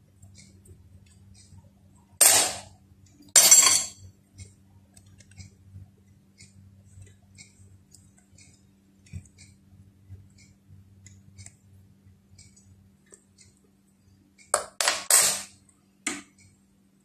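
Fork and fingers working filled dough pastries on ceramic plates: soft ticks and clicks of the fork crimping the edges. Louder short scraping clatters of utensil against plate twice, about two and three and a half seconds in, and a quick cluster of them near the end, over a low steady hum.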